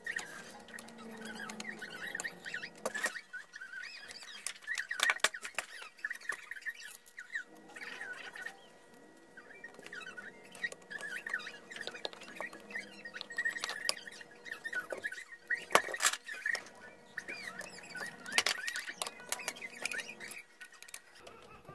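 Hand screwdriver driving small screws into the sheet-metal cover of a switching power supply: many sharp metal clicks and short squeaks from the turning screws, over a faint steady hum.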